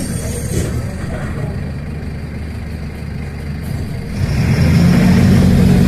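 A motor vehicle's engine running as a low rumble; about four seconds in it grows louder, with a steady low hum.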